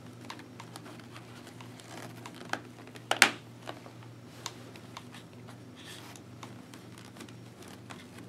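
Hands pressing a Shoei GT-Air helmet's fabric comfort liner back into place, with light rustling and small clicks. About three seconds in, one sharp snap as a press-stud fastener clicks shut.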